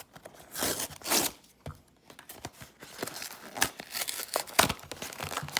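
Cardboard trading-card starter deck box being ripped open: tearing about a second in, then crinkling and rustling of the packaging being handled.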